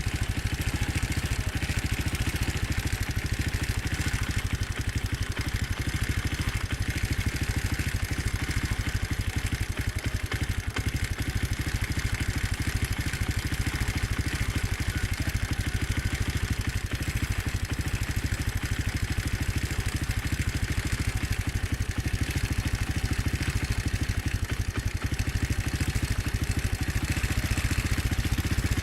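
Motorcycle engine running steadily at an even, unchanging speed, with a rapid regular exhaust pulse and no revving.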